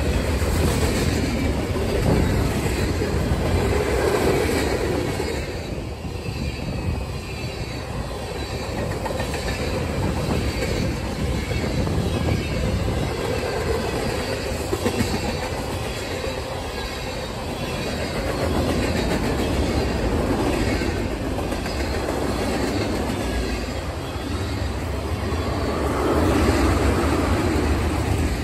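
Freight cars of a long mixed train (boxcars, tank cars, autoracks) rolling past close by: steady rumble of steel wheels on the rails with rhythmic clacking over rail joints, swelling and easing as different cars pass, and faint high-pitched wheel squeal at times.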